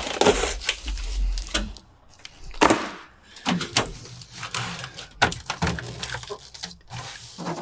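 Handling noise of a sheet of butyl sound-deadening mat being moved and laid against the truck's cab floor: scattered knocks, rustles and scrapes, with a sharper knock about two and a half seconds in.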